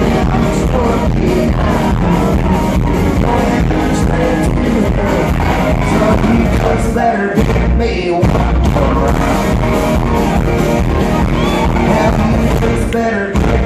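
A live country band playing loud, with a male voice singing over acoustic guitar and a steady drum beat. The bass and drums drop out briefly about seven seconds in and again near the end.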